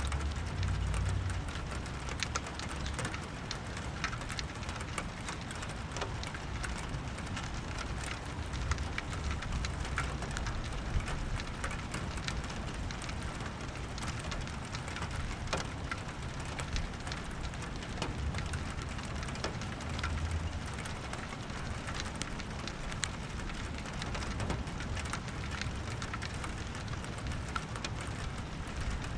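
Steady rain falling, with many separate drops ticking close by. A low rumble comes near the start and again about two-thirds of the way through.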